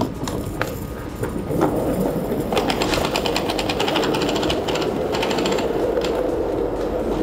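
Mechanic's creeper rolling on its small caster wheels across a concrete shop floor as it is towed, a fast continuous rattle that gets denser about two and a half seconds in.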